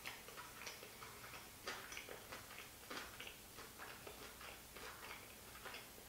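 Close-miked chewing of a mouthful of sushi roll: soft, wet mouth clicks and smacks coming irregularly, a few each second.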